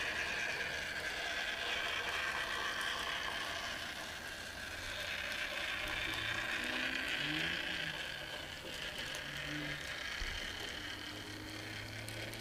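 N gauge model train running along the track: the locomotive's small electric motor and gears whirring, with the rolling noise of the wheels on the rails. It swells and eases as the train moves along the layout.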